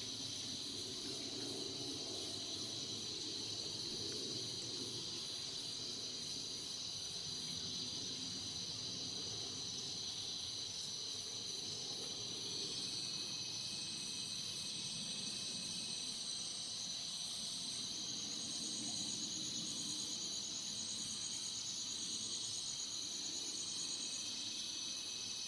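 Night insect chorus of crickets and other insects, with several steady high-pitched trills running together. Shorter, higher calls come and go over it, and one of them trills for several seconds in the second half.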